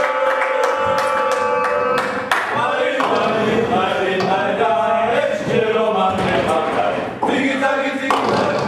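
Singing voices with long held notes, over several sharp knocks in the first two seconds from ninepin bowling balls and pins.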